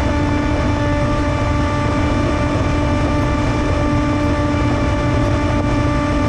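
Electric motor and propeller of an FPV flying wing running at a steady whine, heard from the onboard camera, with wind rushing over the microphone as a heavy low rumble.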